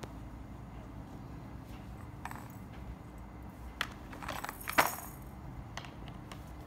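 A Bengal cat scuffling and clawing in a cardboard scratcher bowl: scattered light clicks, then a short burst of scratchy rustling about four seconds in that peaks in one sharp click.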